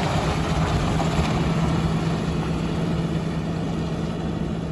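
Diesel engine of a KS-55713 mobile crane truck running as the truck drives off: a steady low hum that slowly fades.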